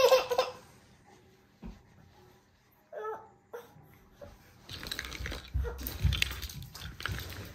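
A toddler's short vocal sound about three seconds in, then rustling and handling noise with a low rumble as small cosmetic bottles and items are moved about on a bed.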